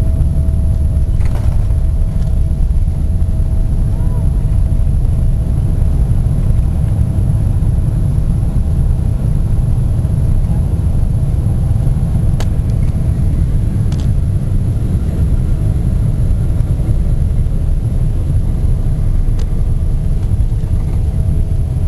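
Steady loud rumble inside an airliner cabin during the landing roll, from the engines and the wheels running on the runway, with a faint steady hum above it.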